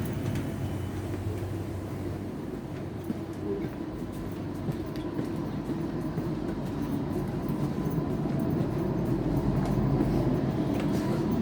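Regional passenger train running, a steady rumble with a faint thin whine, growing louder over the last few seconds.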